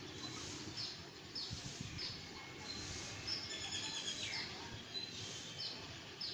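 Birds chirping, with a short high call repeated roughly every half second to second and a quicker run of notes from another bird around the middle, over low background noise.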